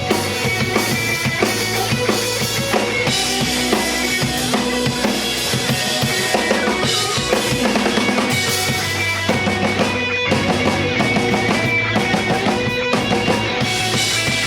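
J-pop song with a full drum kit, bass drum and snare driving it, and guitar, played loudly over a stage PA during a sound check.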